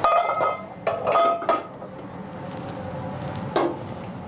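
Stainless-steel saucepans and a conical metal strainer clanking against each other, ringing: a sharp knock at the start, another about a second in, and a softer one near the end. Between the knocks there is a steady low hiss.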